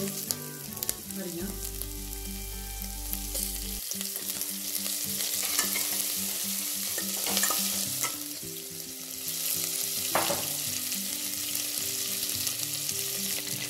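Whole spices (black mustard seeds, cloves, black peppercorns) sizzling in hot desi ghee in a stainless steel pot while a steel ladle stirs and scrapes the bottom: the tempering (tadka) for a kadhi. A couple of louder ladle scrapes come about seven and ten seconds in.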